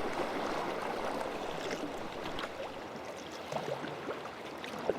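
Sea water lapping and splashing against a sea kayak's hull, with a few small sharp splashes in the second half.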